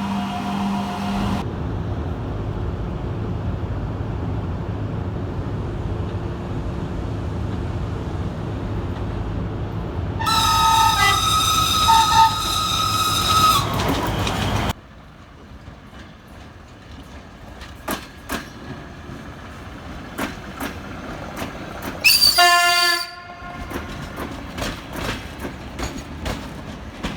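Georgian Railway train horns over the rumble of a passing train. A multi-tone horn ends about a second in, and a long chord of several horn tones sounds around the middle for about three seconds. After a sudden drop to a quieter stretch of rail clicks from wheels over joints, one short loud horn blast sounds about two-thirds of the way through.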